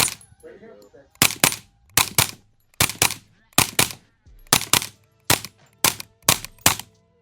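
Suppressed Kriss Vector Gen 3 carbine in .45 ACP firing about fourteen subsonic rounds through a Rugged Obsidian suppressor, mostly in quick pairs, with the shooting ending a little before the end.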